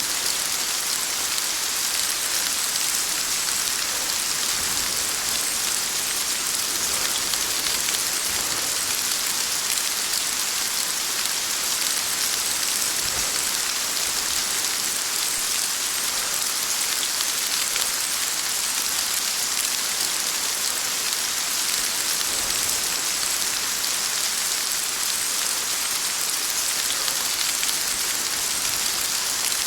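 Heavy rain falling steadily, an even hiss with no break or change.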